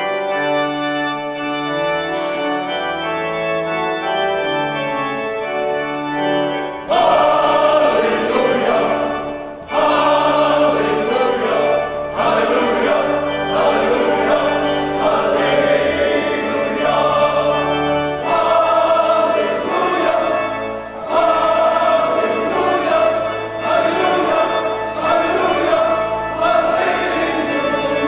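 Organ music with long held chords, joined about seven seconds in by a choir singing.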